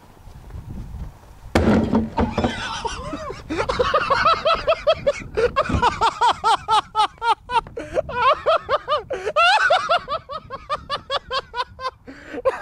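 A homemade Works bottle bomb (toilet-bowl cleaner and foil in a bottle) bursts inside a plastic trash can with one sharp bang about a second and a half in. It is followed at once by hysterical, high-pitched laughter in quick repeated bursts.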